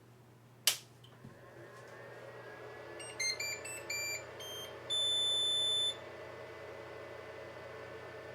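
Anycubic Chiron 3D printer switched on: a single click, then its cooling fans spin up and run with a steady, really loud hum. About three seconds in, its buzzer plays a quick run of startup beeps, ending in one long beep.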